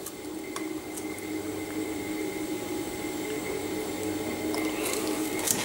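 Thick yogurt mixture pouring from a glass jug into small plastic yogurt cups: a soft, steady liquid sound over a faint steady hum.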